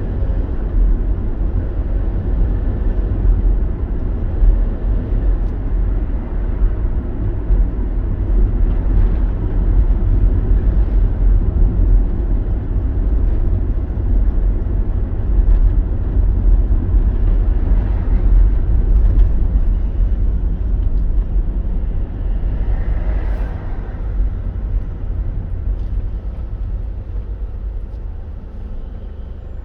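Car driving, heard from inside: a steady low rumble of road and engine noise that eases a little near the end.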